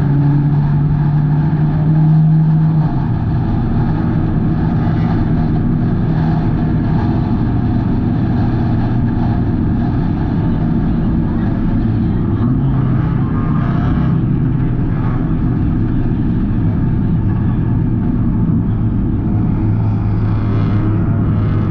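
Hornets-class stock car engine running hard at racing speed, its pitch dropping about three seconds in and climbing again near the end as the car works through the laps.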